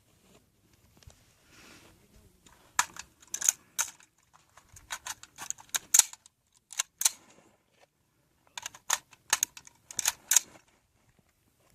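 Quick runs of sharp, light clicks and clatters, gathered in three bunches about three, six and nine to ten seconds in.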